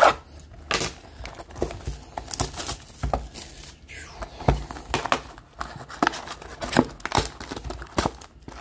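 A cardboard hobby box of trading cards being opened by gloved hands: crinkling and tearing of its wrapping and flaps, with many short, irregular taps and knocks of cardboard on the table.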